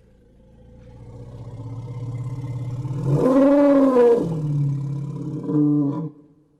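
Elephant call: a low rumble that swells over about three seconds into a loud roar whose pitch rises and falls, then a shorter second call that cuts off about six seconds in.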